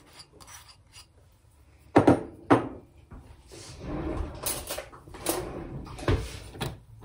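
Kitchenware handling: two sharp knocks about two seconds in, as a ceramic bowl is set down on the counter, then a run of clacks and rustling.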